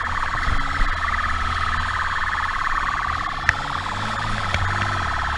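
Police motorcycle siren sounding continuously with a fast warble, its pitch slowly sagging and rising again, over the motorcycle's engine running at speed.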